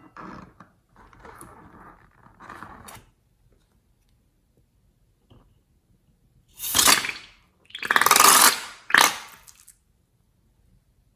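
Slime being handled: soft squishing in the first three seconds, then three much louder squelching bursts, each under a second, in the second half.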